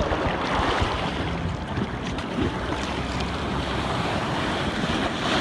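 Jet ski running over open water, with wind buffeting the microphone and water rushing beneath it.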